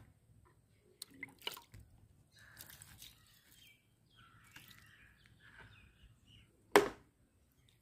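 Liquid fertilizer poured from a plastic cup into a potted plant's soil, trickling and dripping softly, with faint bird chirps. A sharp knock about seven seconds in is the loudest sound.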